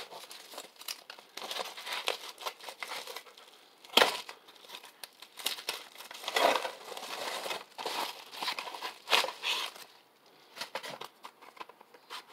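Packaging being torn open and crinkled by hand while unwrapping a mail-order DVD, irregular rustling with a sharp crack about four seconds in.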